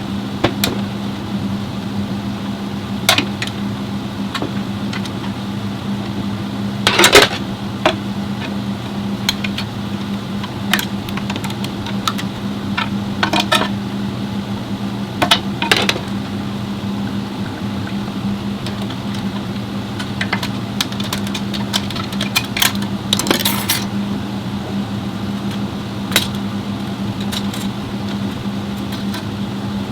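Scattered metal clinks and clanks of parts and hand tools being handled, over a steady low hum. The loudest clatter comes about seven seconds in.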